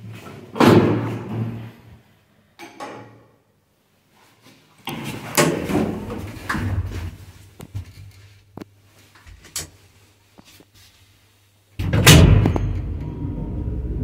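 Lift landing door of a 1990 ZREMB lift being opened and swinging shut with knocks and rattles, then a click. Near the end there is a loud clunk as the lift starts, followed by the steady hum of the running lift machinery.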